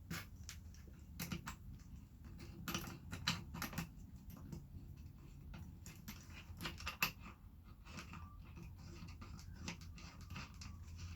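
Faint, irregular metal clicks and scraping as the mandrel is threaded into a hand rivet nut tool.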